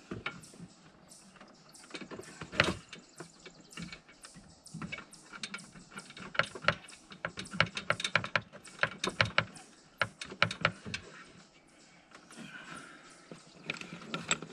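Irregular clicks, taps and knocks of a truck radiator and its fittings being handled and set into place. The clicking is busiest in the middle, with one sharp knock about two and a half seconds in.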